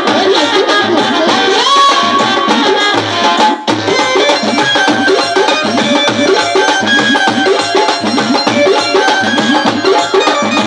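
Haryanvi folk music with a steady drum beat under a busy melody, dropping out briefly about three and a half seconds in.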